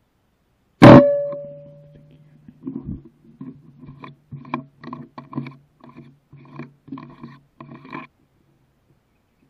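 A single shot from a Mouser Krypton PCP air rifle about a second in: a sharp crack followed by a ringing tone that fades over about a second and a half. After it, a run of short pitched pulses, two to three a second, lasting about five seconds.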